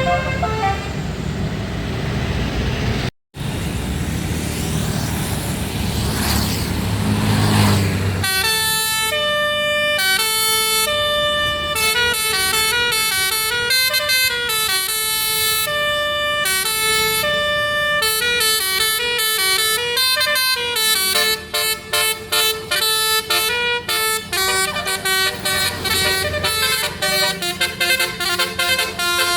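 Bus basuri telolet horn playing a long melody of clear, stepped notes, with short chopped notes near the end. Before it, for the first several seconds, there is traffic and engine rumble that swells as a vehicle passes.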